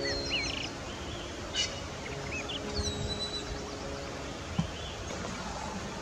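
Soft background music with long held notes, with small birds chirping and whistling over it: short chirps at the start, a quick trill about a second and a half in, and a whistled call about three seconds in.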